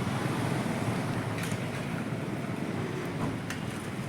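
Steady rushing background noise, with a few faint light clicks.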